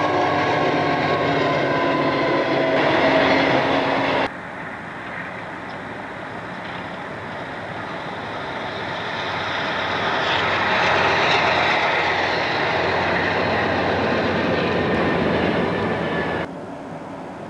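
Freight trains rolling past in snow, with abrupt cuts between passes. First a train goes by close with a steady pitched tone over the rolling noise; then diesel locomotives approach, their sound swelling to a peak about two thirds of the way through and fading as they pass.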